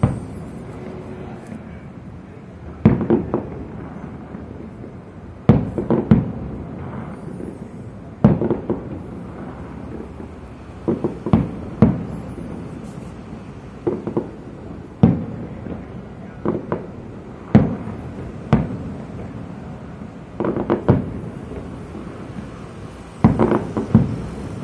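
Fireworks bursting in the sky: a string of loud, booming bangs every one to three seconds, some coming in quick pairs or clusters, each trailing off in a brief rumble.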